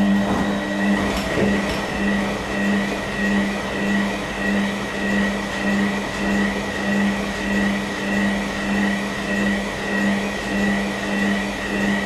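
Beko WKB 61022 front-loading washing machine in its wash phase: the drum motor hums steadily while turning the drum, with a throb about once every three-quarters of a second and a faint high whine above it. Water and laundry slosh in the drum as it turns.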